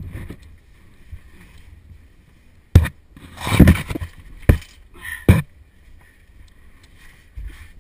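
Helmet-mounted camera and caving gear knocking and scraping against rock in a tight cave crawl: a sharp knock nearly three seconds in, a longer scrape straight after, then two more knocks.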